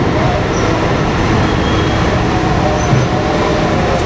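Giant BelAZ 75710 mining dump truck driving, its twin diesel engines running with a loud, steady noise.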